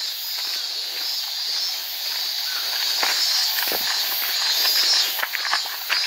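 Steady high-pitched buzz of insects from the surrounding forest, with a higher pulsing chirp repeating about twice a second, over footsteps on a dirt trail.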